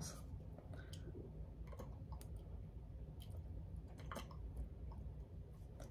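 Faint, scattered clicks and light taps from handling a small fragrance-oil bottle over a glass mason jar while pouring oil onto aroma beads, over a low steady hum.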